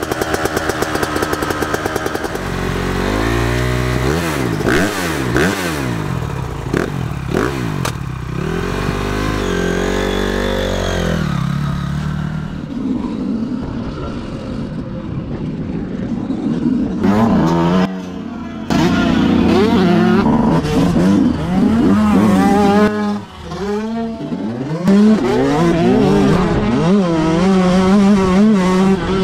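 Two-stroke 125 motocross bike engine (Yamaha YZ125), heard close from on the bike, revving up and down while riding. Its pitch rises and falls again and again with the throttle and gear changes.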